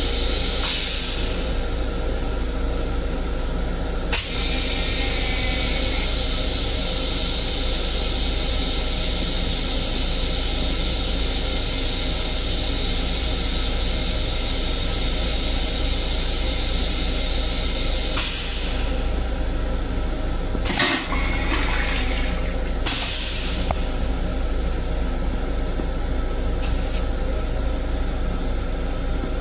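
M7 railcar toilet flushing: water hisses steadily through the bowl for about fourteen seconds, then comes in several short rushes in the second half. A steady low hum from the railcar runs underneath.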